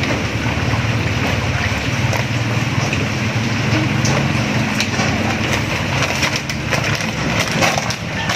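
Steady low motor hum throughout, with faint light crackles of a thin plastic bag being handled while its edge is melted shut over a small oil-lamp flame.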